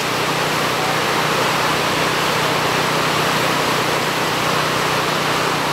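Whitewater of a river rapid rushing steadily.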